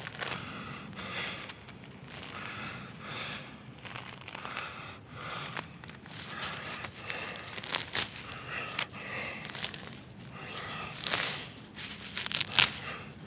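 Rustling and scraping of dirt, grass and pine needles being cleared off a buried gravestone by hand, with a few sharper scrapes and some heavy breathing.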